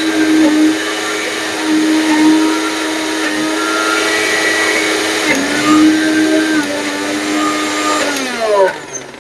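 Surya Flame electric mixer grinder with a stainless steel jar running steadily, grinding a dry load with no water added. Near the end it is switched off and its pitch falls as the motor winds down.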